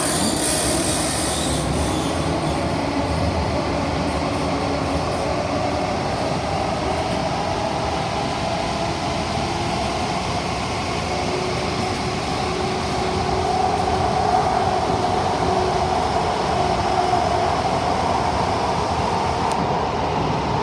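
Cabin noise of an SMRT CT251 train running between stations in a tunnel: a steady rumble of wheels on rail with a hum from the drive, a little louder about two-thirds of the way through.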